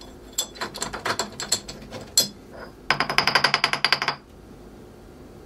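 Steel parts clinking and knocking on a milling machine's cast-iron table as a bolted hold-down clamp is undone and a machined steel bolt is handled: scattered sharp knocks for about two seconds, then a fast ringing metallic rattle of about a dozen clicks a second lasting just over a second.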